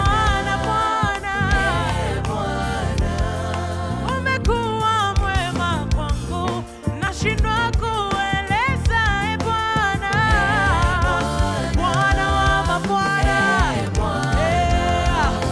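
Gospel praise and worship music: voices singing a melody with vibrato over a live band with bass and drums. The music dips briefly about six and a half seconds in.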